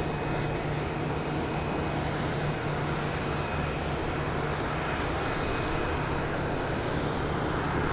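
Boeing 787-9's Rolls-Royce Trent 1000 turbofan engines running at low taxi thrust: a steady rumble with a faint high tone above it.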